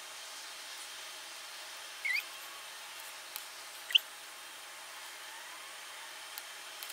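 Two short, high-pitched rising squeaks, about two and four seconds in, the second the louder, over a steady faint hiss, with a few faint ticks.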